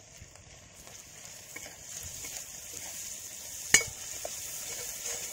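Sliced onions frying in ghee in a kadai, the sizzle growing louder over the first two seconds as a steel ladle stirs them. About three and a half seconds in, the ladle gives one sharp clink against the pan.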